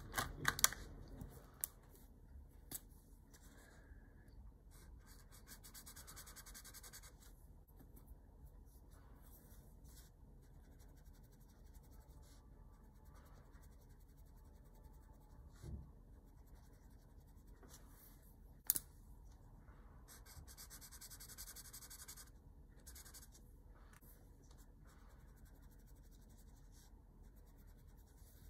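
Faint scratching of a brush-pen tip and a paintbrush on watercolour paper, in short bursts, with a few sharp clicks near the start as pens are pulled from their plastic box.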